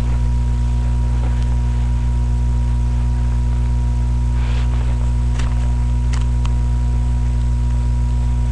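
Loud, steady electrical mains hum with a buzzing stack of overtones. About halfway through there is a faint brief scrape, followed by a few light clicks.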